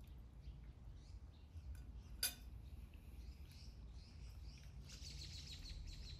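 Metal forks and spoons clinking and scraping faintly on plates as people eat, with one sharper clink about two seconds in.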